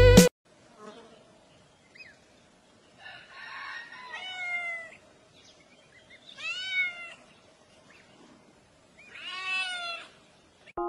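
A cat meows three times, a few seconds apart, each meow rising then falling in pitch. Under it are faint hiss and a few short, faint high peeps from ducklings.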